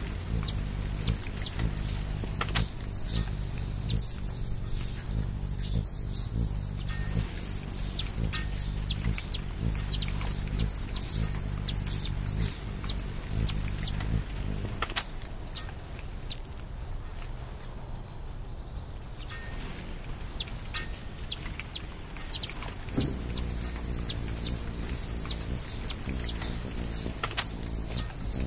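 A steady high-pitched insect trill, like crickets, that breaks off for about two seconds past the middle, with scattered short bird chirps. A low background music drone runs underneath and shifts near the end.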